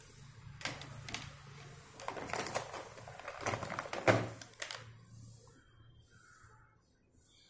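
Plastic felt-tip marker pens clicking and rattling as one marker is put down and another is picked up and opened, with a sharp click about four seconds in. Near the end there are faint strokes of a marker on paper.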